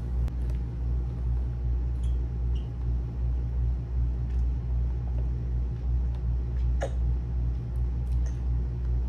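Steady low rumble and hum of the room, with one short click about seven seconds in.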